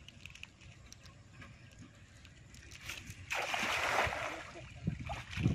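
A thrown cast net landing on the water with a sudden splash about three seconds in, as its weighted rim strikes the surface in a ring. A few low thuds follow near the end.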